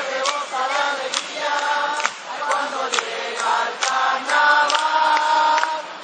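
A street carnival group singing together, with a sharp beat struck roughly once a second.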